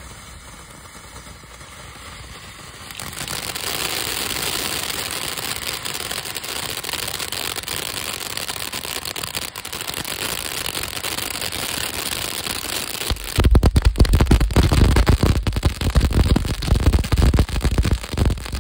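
500-gram 'Mulberry Street Mayhem' firework fountain spraying sparks with a steady hiss that grows louder about three seconds in. About thirteen seconds in it breaks into dense, loud, irregular crackling pops.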